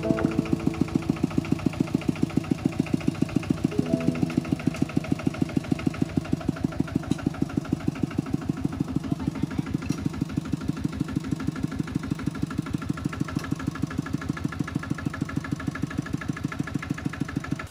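Single-cylinder diesel engine of a two-wheel walking tractor running steadily, with a fast, even beat of exhaust pulses.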